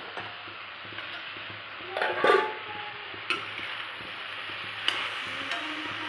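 Cauliflower, peas and potatoes frying in a steel pan with a steady sizzle, a louder metallic clatter against the pan about two seconds in, and a couple of sharp clicks later.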